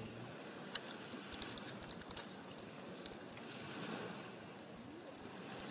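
Faint steady hiss of outdoor background noise, with scattered small clicks and rustles.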